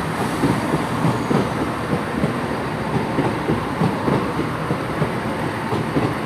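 Two coupled Chiltern Railways Class 168 diesel multiple units running steadily along the platform as the train arrives, with engine noise and the rumble of wheels on the rails.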